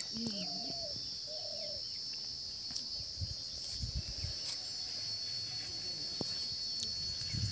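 Steady high-pitched drone of insects, with a few faint bird chirps near the start and some soft low knocks in the middle.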